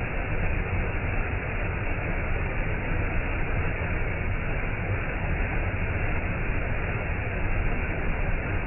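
Clear stream of water flowing steadily, an even noise with no breaks.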